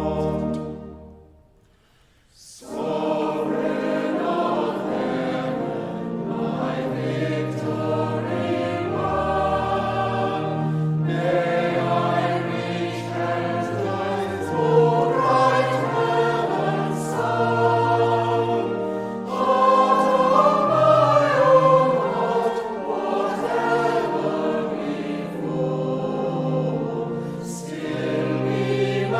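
A held chord fades out over the first two seconds; then, about two and a half seconds in, a choir begins singing in several parts and carries on through.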